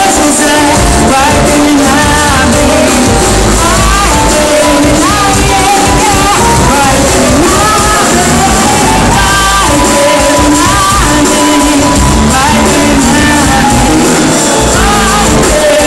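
Live band music played loud through a PA system, with a woman singing a pop song over the band.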